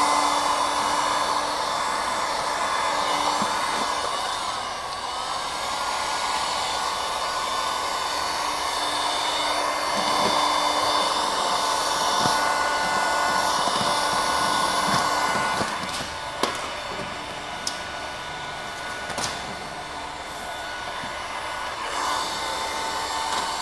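Electric heat gun blowing steadily, heating vinyl wrap film to soften it so it can be stretched around a corner. The blowing drops in level about two thirds of the way through, and a few light clicks follow.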